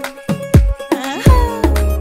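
Music with a steady drum beat, strokes about every half second; a sliding melodic phrase comes in about a second in, followed by a deep bass.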